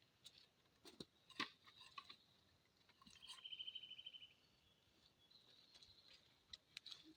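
Faint scattered clicks and knocks of handling, the loudest about a second and a half in, with a small bird's fast, high trill about three seconds in.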